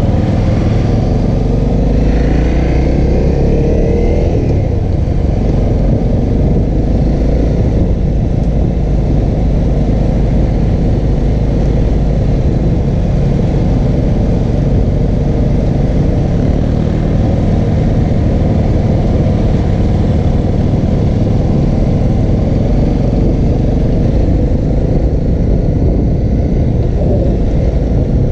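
2014 Honda CRF250L's single-cylinder four-stroke engine running under way, its pitch rising and falling a few seconds in as the throttle is worked. A loud, steady low rumble of wind on the helmet-mounted microphone runs beneath it.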